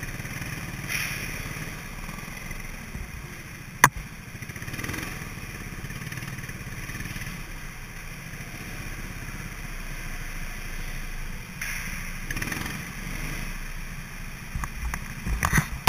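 Go-kart engine running steadily with a low rumble. A single sharp click comes about four seconds in, and a quick run of knocks near the end.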